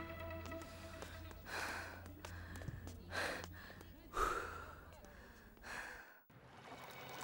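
A man gasping for breath after a hard run: four heavy, uneven breaths, then the sound cuts off abruptly near the end.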